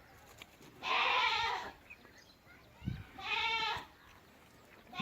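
Two bleats from farm livestock, each just under a second long with a wavering pitch, a couple of seconds apart. A short soft thump comes just before the second bleat.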